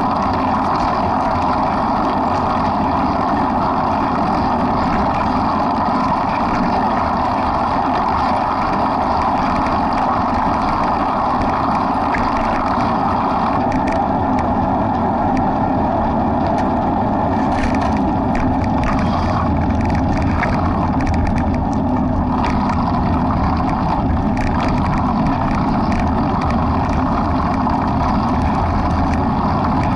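Steady rushing wind and motion noise on the microphone of a camera carried by a runner, with faint crackles in the second half.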